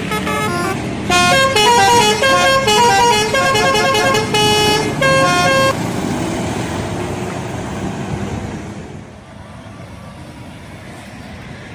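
Indonesian bus 'telolet' musical air horn playing a quick tune of short notes at changing pitches for about six seconds. Then the bus's engine and road noise carry on and fade away.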